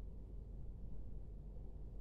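A steady low hum of background noise, with no distinct sounds standing out.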